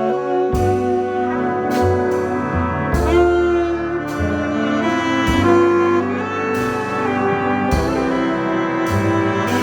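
Big band playing a slow jazz ballad, with brass and saxophones holding full chords over bass and drums.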